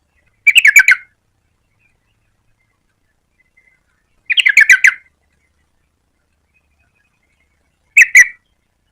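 Yellow-vented bulbul singing: three short, loud bursts of quick bubbly notes spaced about four seconds apart, the last burst shorter than the first two.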